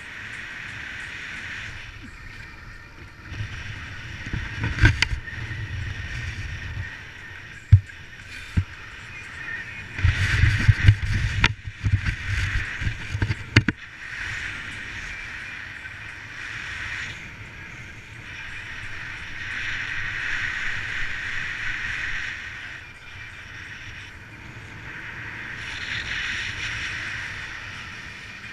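Wind rushing over the microphone of a camera on a paraglider pilot in flight. The hiss swells and fades, with heavy low buffeting gusts about four to seven seconds in and again from about ten to fourteen seconds, and a few sharp knocks among them.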